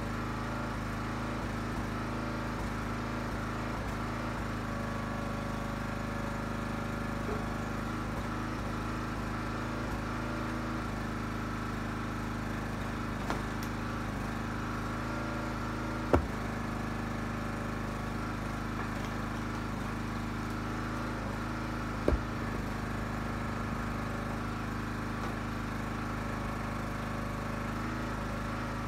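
Huskee 35-ton log splitter's small gas engine running steadily at a constant speed. Two sharp knocks stand out over it, one about halfway through and another some six seconds later.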